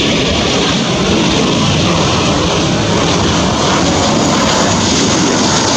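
Airbus A330-200 twin jet engines running as the airliner rolls along the airfield: a loud, steady rushing jet noise with no rise or fall.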